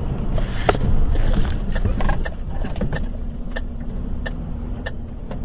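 Road noise inside a moving truck's cab: a loud, steady low rumble. A sharp knock comes under a second in, and from about two seconds in there is a run of short clicks, roughly one every 0.7 seconds.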